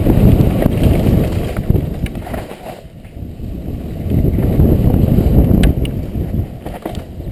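Wind buffeting a helmet-mounted camera microphone over the rumble and rattle of a mountain bike riding fast down a dirt and gravel trail. The noise eases briefly about three seconds in, and a few sharp clicks and knocks come near the end.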